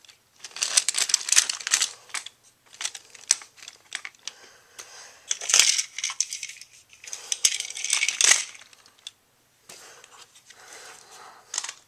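Small plastic toy-train pieces and cargo crates being handled, clicking, rattling and scraping against each other in several bursts, the loudest in the middle.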